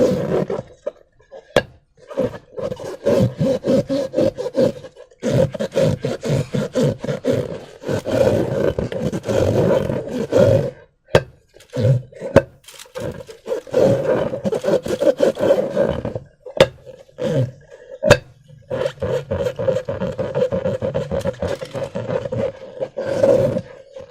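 Slime being squeezed and worked by hand with a transparent rubber balloon: rapid crackling squelches in stretches of a few seconds, broken by short pauses, with a few sharp snaps.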